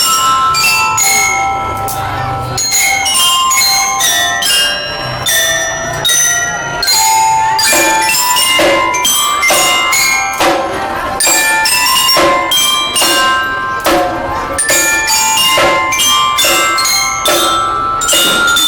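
Children's marching drum band playing a tune: a melody of ringing bell-lyre notes over steady percussion strikes.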